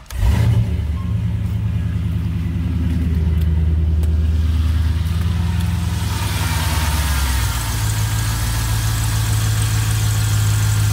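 6.0-litre LQ4 V8 in an LS-swapped Chevy K30 fires up and runs at a steady idle.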